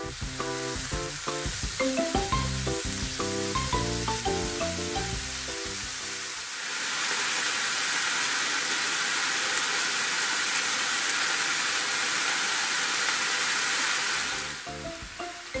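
Chicken breast pieces frying in oil in a frying pan, a steady loud sizzle. Background music plays over it for the first six seconds and comes back near the end; in between the sizzle is heard alone.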